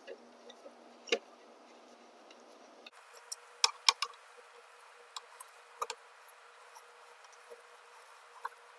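Scattered light clicks and ticks of a hex key working 4 mm bolts loose, with a few sharper clicks around the middle.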